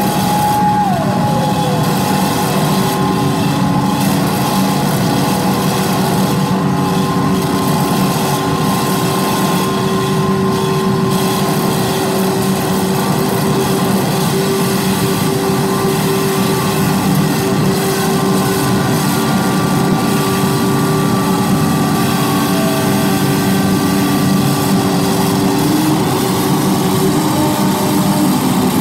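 Live electronic noise music from effects pedals and electronics: a loud, dense wall of noise with steady droning tones held over it. About a second in, one high tone slides down in pitch and settles lower.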